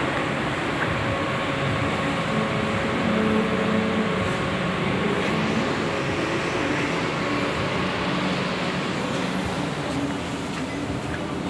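Steady mechanical running noise from a CNC plasma cutting table's equipment at rest between cuts, with faint humming tones that come and go.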